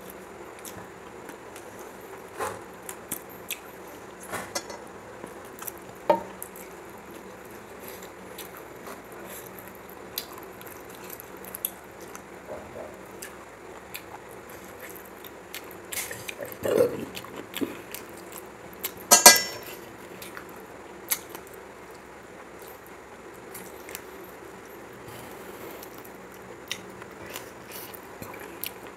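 Close-up eating by hand: fingers working rice and chicken curry on a metal plate and picking at a chicken piece, with chewing and lip smacks heard as scattered small clicks and wet sounds. A quick run of crunches about nineteen seconds in is the loudest moment.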